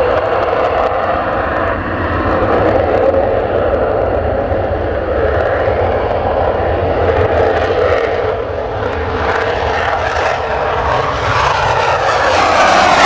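F-16 fighter jet engines in afterburner on the takeoff roll: a loud, steady rumbling jet noise that grows louder near the end as a jet climbs past close by.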